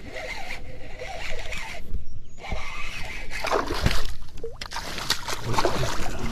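Water splashing and sloshing close by, with irregular small knocks and clicks that grow busier about halfway through.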